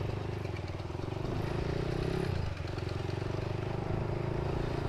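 Motorcycle engine running steadily, dipping briefly about halfway through before picking up again.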